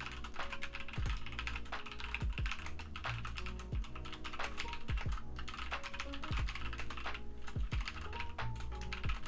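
Fast, continuous typing on a computer keyboard: a dense run of rapid keystrokes during a speed-typing test, over lo-fi background music with a soft beat.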